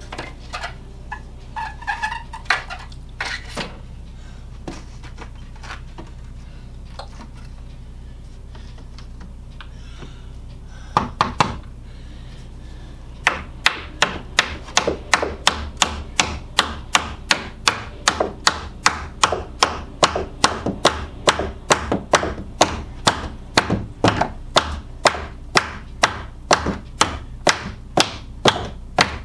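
Hammer tapping wooden window trim into place: a few scattered knocks and a short clatter, then a steady run of sharp taps, about two a second.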